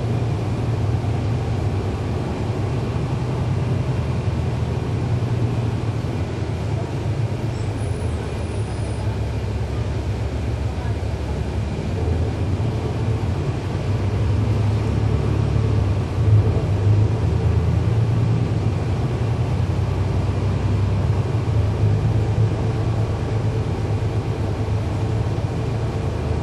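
Steady low rumble of a 2011 NABI 40-foot transit bus under way, its Cummins ISL9 inline-six diesel running through a ZF Ecolife automatic transmission, heard from inside the cabin. The rumble grows a little louder for a few seconds past the middle.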